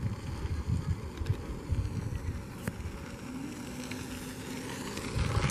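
Wind buffeting the microphone in uneven gusts, with a faint steady hum for about a second past the middle.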